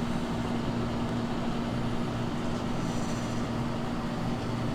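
Steady mechanical hum with a constant low drone under it, unchanging throughout.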